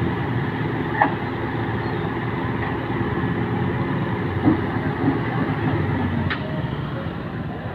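Heavy diesel machinery running steadily, the engine of the excavator or its transport truck, with a few short metallic knocks.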